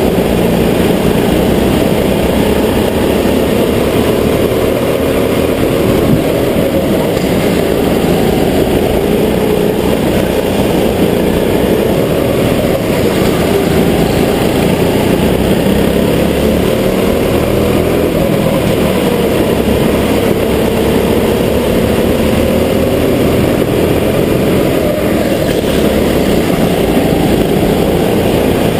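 Go-kart engines running hard on a lap, the pitch rising and falling again and again as the kart accelerates out of corners and eases off into them.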